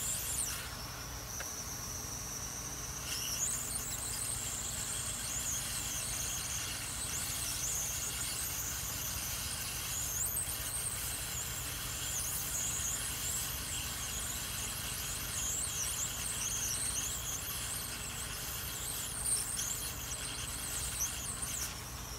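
Hot air rework gun blowing steadily on a circuit board's IC to melt its solder, a low steady hum with high wavering squeals over it.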